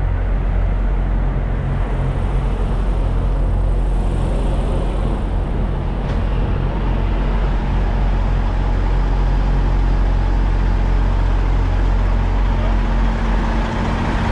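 Idling diesel semi-truck engines: a steady low rumble with no change in pitch.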